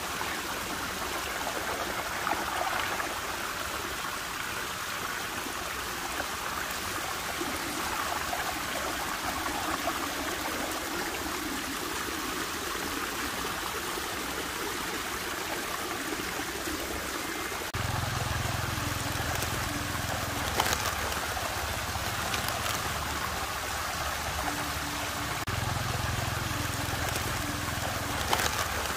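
Water swirling and rushing steadily in a whirlpool vortex, like a running stream. About 18 s in, a low steady hum joins it and drops out and returns in blocks.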